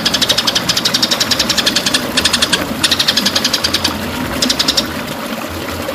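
White-rumped shama (murai batu) singing a rapid-fire run of sharp repeated high notes, unbroken for about two seconds, then in shorter bursts that stop about five seconds in.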